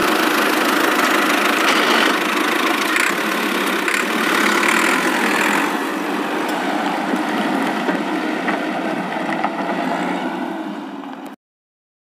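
Tractor engine sound effect: a steady engine running, easing off a little near the end and then cutting off suddenly about a second before the end.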